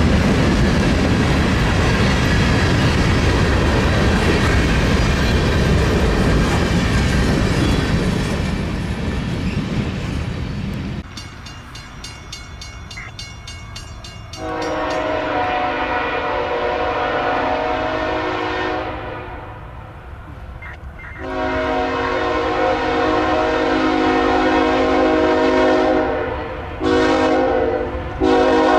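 A freight train rolls past with loud wheel and rail noise, which drops away suddenly about eleven seconds in. A diesel locomotive's chime horn then sounds the grade-crossing signal: two long blasts, a short one, and a long one starting near the end.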